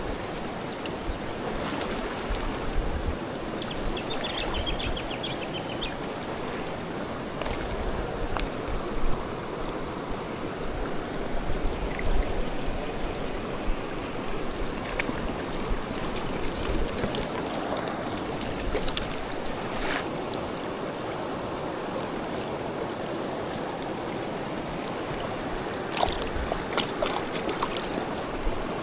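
River water running steadily, with a brief run of high chirps about four seconds in and a few sharp clicks near the end.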